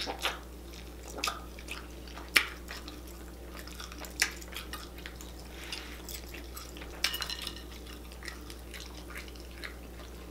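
Close-up wet eating sounds: lip smacks and chewing, and fingers squelching through sauce-soaked chicken and seafood in a glass bowl. They come as irregular sharp wet clicks, with the loudest about two and four seconds in and a cluster about seven seconds in, over a low steady hum.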